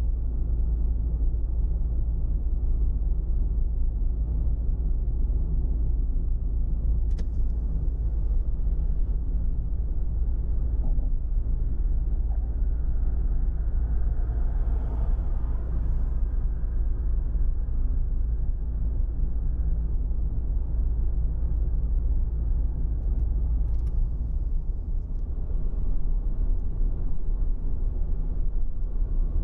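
Steady low rumble of road and engine noise inside the cabin of a Honda N-BOX kei car cruising on an expressway.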